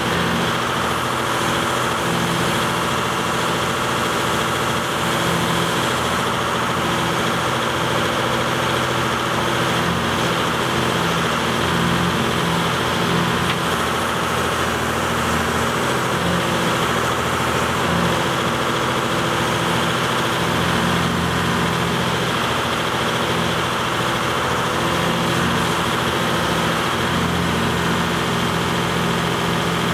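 Volvo EC210B crawler excavator's diesel engine running steadily.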